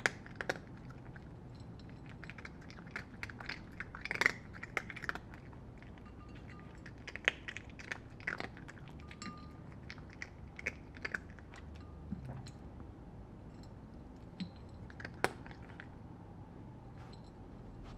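Irregular crunchy chewing with short wet clicks, over a faint low hum.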